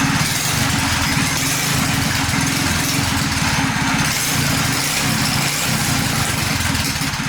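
Predator 212 single-cylinder four-stroke engine in a mini dirt bike, running steadily through an open exhaust pipe with no muffler fitted.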